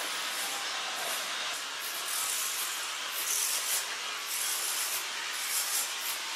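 Footsteps scuffing on a paved lane at a walking pace, a little under two steps a second, over a steady hiss.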